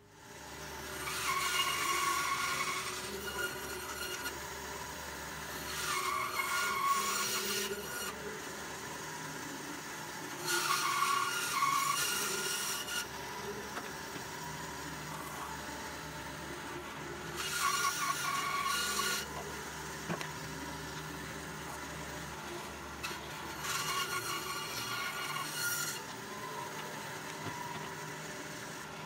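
Large vertical bandsaw running and ripping a rough-sawn board lengthwise. The motor hums steadily, and the cutting grows louder about five times, each time for a couple of seconds.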